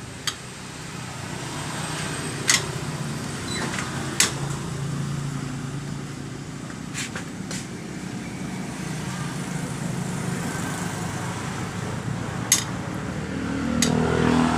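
A motor vehicle engine running steadily, growing louder near the end, with about seven sharp clicks and knocks scattered through it.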